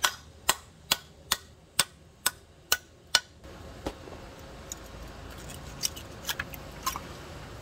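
Hammer knocking a hole in a queen conch shell: eight sharp strikes about two a second. After a break come fainter scattered clicks as a knife blade is worked into the hole to free the conch.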